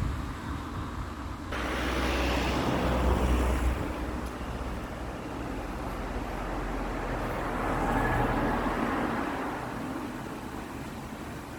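Wind blowing over the microphone in gusts, a steady rushing hiss with a deep rumble that swells suddenly about a second and a half in and again a few seconds before the end.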